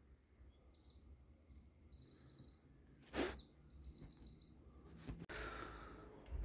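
A small bird chirping and trilling in short, high phrases, with one sharp click about three seconds in.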